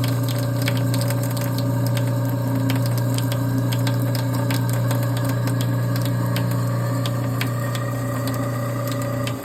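InSinkErator garbage disposal motor running with a steady hum and scattered clicks, churning disposer cleaner and hot water through a cleaning cycle. It shuts off just before the end.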